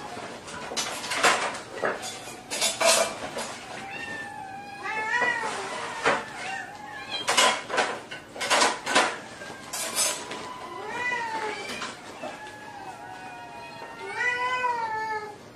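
A cat meowing in several separate calls that rise and fall in pitch, with sharp clattering knocks in between, as of hard objects or dishes being knocked about.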